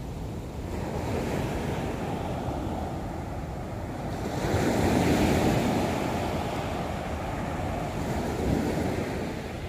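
Sea waves breaking and washing up a sandy beach, with wind on the microphone; the surf swells louder about halfway through as a bigger wave comes in, and again briefly near the end.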